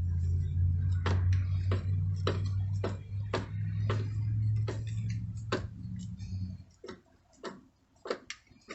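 Sharp clicks at an even pace of about two a second as a threaded nut insert is screwed into a wooden chair leg, over a low steady hum that stops about six and a half seconds in.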